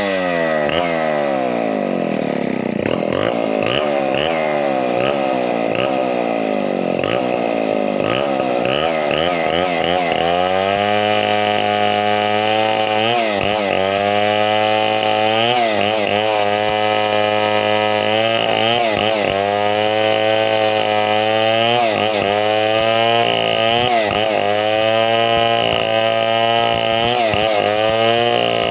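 Chainsaw running under load while cutting wood. Its engine note swings up and down for the first third, then holds steadier with a short dip in pitch every second or two as the chain bites into the wood.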